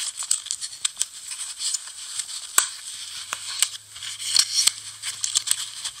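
A closed folding pocket knife being worked into a fabric belt sheath: rustling and scraping of the sheath with many small, sharp clicks of the knife's metal.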